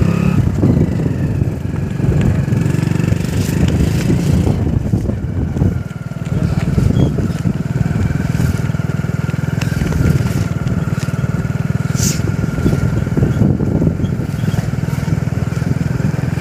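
Motorcycle engine running steadily at low road speed, heard from on the bike, with a thin whine over it for several seconds in the middle.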